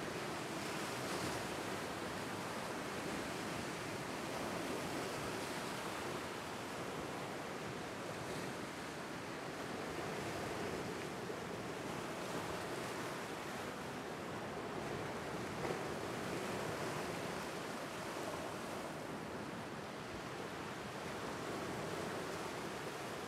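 Small Lake Superior waves breaking against rocks and washing over a flat rock shoreline: a steady wash of surf that swells and eases every few seconds.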